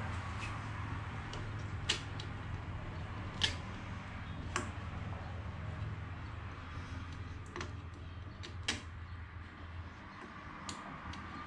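Scattered sharp clicks and taps of a rubber hose and metal coolant pipe being handled and fitted against a bare Honda D16 engine block, about seven or eight at irregular intervals, over a steady low hum.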